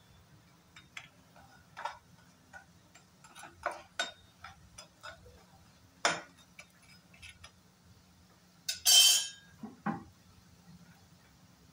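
A metal turner clicking and tapping against a non-stick frying pan as shallow-frying lentil fritters are turned, with a loud short hiss lasting about half a second near the end.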